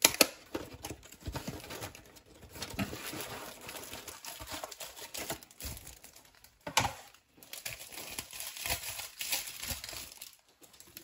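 Plastic oven bag and its packaging crinkling and rustling as it is handled, on and off, with a sharper crackle right at the start and another about seven seconds in.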